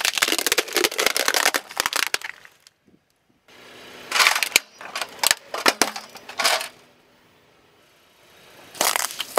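Car tyre crushing plastic objects in turn. First comes a dense run of crackling and snapping as it rolls onto a plastic globe ball, then a series of sharp plastic cracks as it crushes a bathroom scale. Crunching of small juice cartons starts near the end.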